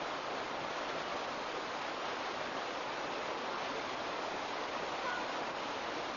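Steady rushing of water after heavy rain, an even unbroken roar with no separate splashes or drops.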